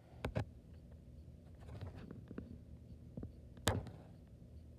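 Handling noise: two light knocks just after the start, soft rustling about two seconds in, then one sharper, louder knock just before four seconds in.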